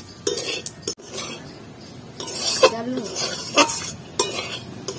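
Metal spatula scraping and clinking against a metal kadai as fried potato rounds are stirred and tossed, in irregular strokes, with a light sizzle.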